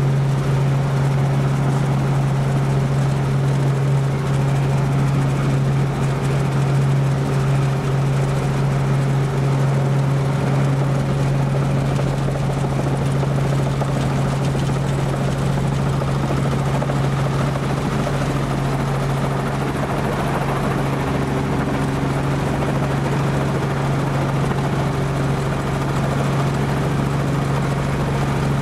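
Robinson R44 helicopter heard from inside the cabin during descent and landing: a steady drone from engine and rotor with a strong low hum, easing slightly about two-thirds of the way through.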